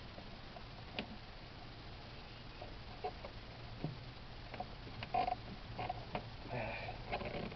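Scattered light clicks and knocks of parts being handled while an intake manifold is worked into place on an engine, with a few short squeaks in the second half.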